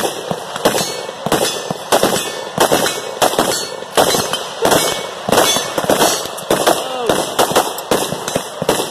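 Rapid, irregular gunfire from several guns along a firing line, a few shots a second without a break, including a short-barrelled AR-style carbine fired close by.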